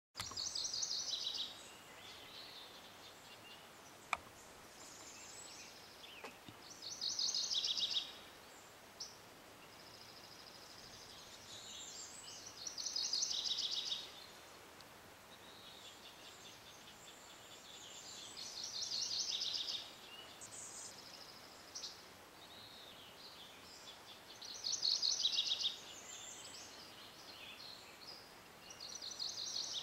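Birdsong: a short, rapidly trilled high-pitched phrase of about a second and a half, repeated roughly every six seconds, with a few faint short notes between, over a soft steady hiss.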